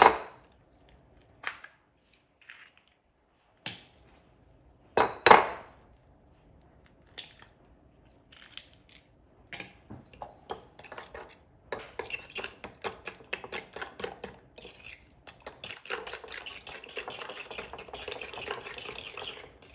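Eggs cracked against the rim of a ceramic mixing bowl, a few sharp knocks, then a metal fork beating them in the bowl, its quick clinks against the sides becoming a dense, steady clatter over the last several seconds.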